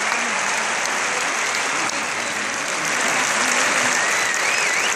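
Large concert-hall audience applauding steadily, with a wavering whistle from the crowd near the end.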